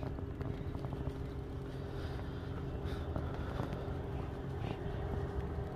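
Boat's outboard motor idling, a steady low hum with a constant pitch.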